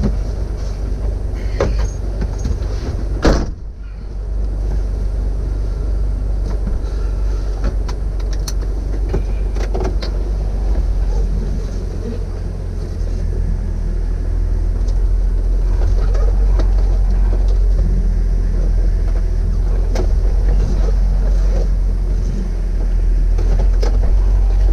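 Jeep Wrangler TJ's 4.0-litre inline-six running, a deep steady rumble that grows a little louder as the Jeep moves off. There is a sharp knock about three seconds in.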